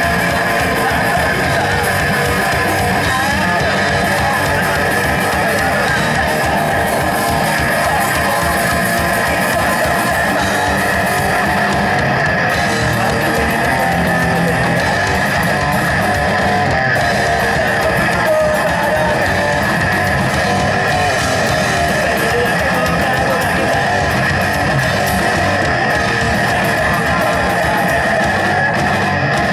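Live rock band playing an instrumental passage: electric guitar, electric bass and drum kit, steady and loud.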